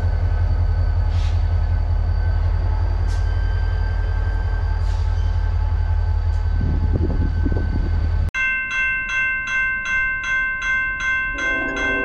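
Diesel locomotive and train rolling past and away, a steady low rumble with a faint steady whine over it. After about eight seconds it cuts to a railroad crossing warning bell ringing rapidly, about three strokes a second, with a lower steady tone joining near the end.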